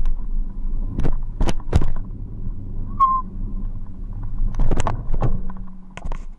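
Low steady rumble with several sharp knocks and clatters, and one short high squeak about three seconds in. The rumble stops shortly before the end. This is handling and movement noise from a camera carried on a walk with two leashed dogs.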